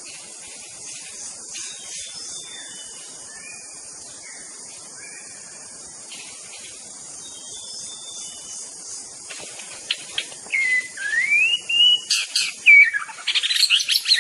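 White-rumped shama singing: faint whistled phrases at first, then from about ten seconds in a loud, varied song with a rising whistle followed by fast chattering notes. A steady high hiss runs underneath.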